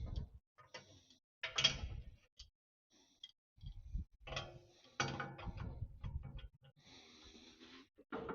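Intermittent clanks, scrapes and rattles of metal tools and brush-cutter parts being handled, in several separate bursts.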